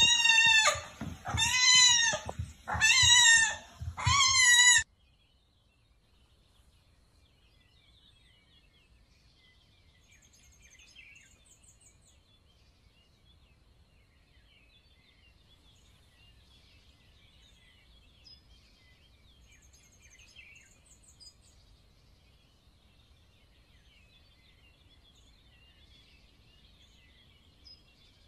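A very young kitten meowing loudly and shrilly four times in quick succession, each meow rising and then falling in pitch. After about five seconds it stops, leaving only faint background hiss with a few faint high chirps.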